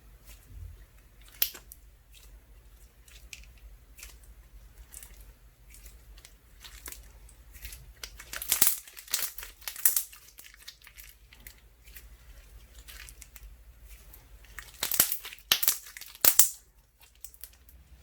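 Ice slime mixed with soothing gel being handled by hand, giving crisp crackling and tearing sounds. The crackles are scattered at first, then come in dense clusters about nine seconds in and again about fifteen to sixteen seconds in.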